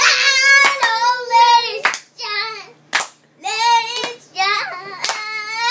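A young child singing a gospel song in a high voice, holding long notes between short breaths, with hand claps about once a second.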